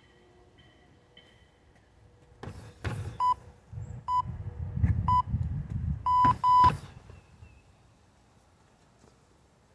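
Strikes thudding against a freestanding heavy bag, coming thick and fast about four to seven seconds in. Electronic beeps sound about once a second from about three seconds in, the last two longer and closer together.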